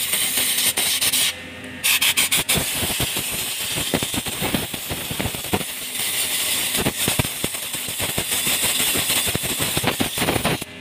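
Compressed-air blow gun hissing as it blows through the radiator core's fins to dry the repair before silicone sealing. It cuts off briefly about a second and a half in, then resumes with an irregular flutter.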